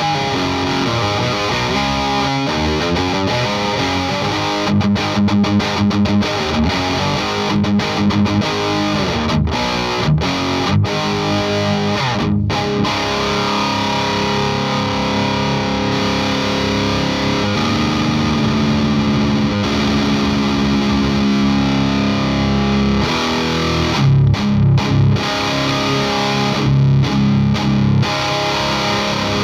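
Electric guitar with DarkmoonNYC pickups played with distortion, riffs and chords, with a chord left ringing in the middle and short choppy chords near the end.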